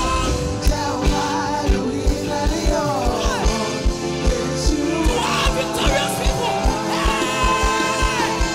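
A live gospel worship band plays: a group of singers over bass guitar, keyboard and drums, with a steady kick-drum beat of about three hits a second under the gliding vocal lines.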